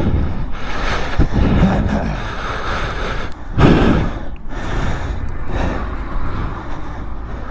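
A motorcyclist breathing hard and gasping after a crash, close to the helmet microphone, with a steady low rumble under it. The loudest gasp comes about three and a half seconds in.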